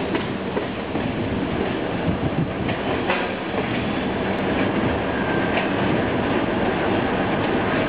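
Passenger train rolling slowly, heard from aboard: a steady rumble of running noise with a few irregular clacks of wheels over rail joints.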